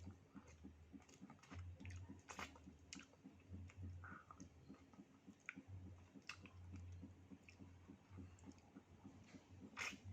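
Faint chewing and small wet mouth clicks from someone eating durian, over a low steady hum.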